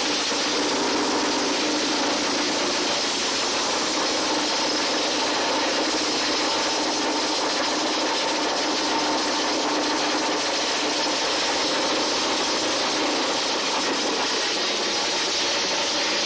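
Small air-cooled petrol engine of a long-tail mud boat motor running steadily on a workshop stand, loud and even.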